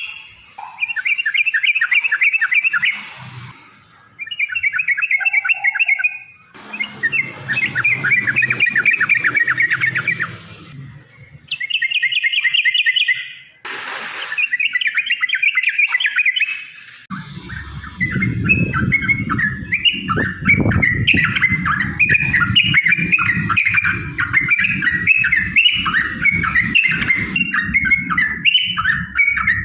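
Yellow-vented bulbul (trucukan) singing its fast, bubbling chattering song. It comes in bursts of a few seconds with short pauses, then runs almost unbroken from about halfway, over a low rumble. A single sharp click about two-thirds of the way through.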